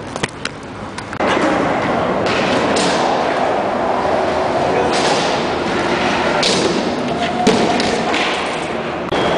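Inline skate wheels rolling and scraping on the concrete of an indoor skatepark, with a sharp thud about seven and a half seconds in as the skater falls on a ramp. The first second holds a few light clicks.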